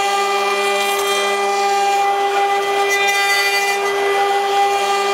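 6090A CNC wood router running: the spindle gives a steady high whine over the rough noise of the bit cutting wood, which swells and eases every couple of seconds as the tool moves.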